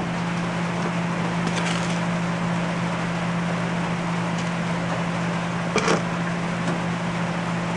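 Steady machine hum, with light scraping as flux is poured about a second and a half in and a sharp clink of a metal spoon against a clay crucible about six seconds in.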